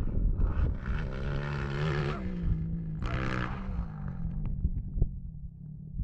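Motocross bike engine revving, its pitch rising and falling with the throttle, over a low rumble. It is loudest in the first half and fades near the end.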